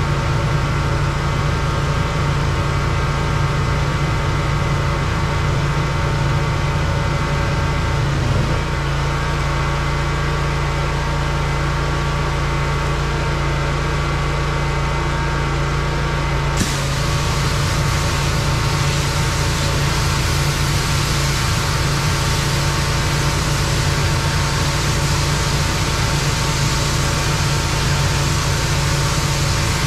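Pressure washer's engine running steadily. About halfway through, a loud steady hiss of spray starts suddenly and carries on over the engine.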